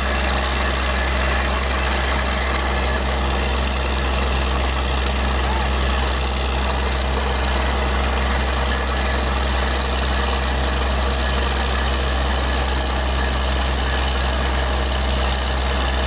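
Truck-mounted borewell drilling rig running steadily, its heavy engine giving a deep, even drone, with the rush and splash of muddy water being blown out of the borehole.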